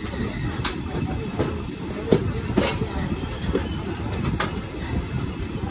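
Passenger train coaches running on the rails, heard at an open coach door: a steady rumble with several sharp, irregular clacks from the wheels on the track.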